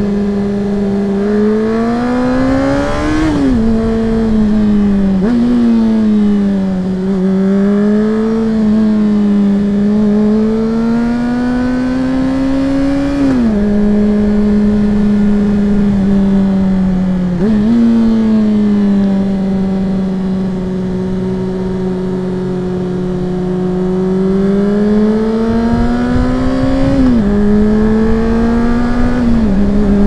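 Sport motorcycle engine heard from the rider's helmet, over steady wind noise. Its note climbs slowly under throttle and drops abruptly at gear changes, several times over.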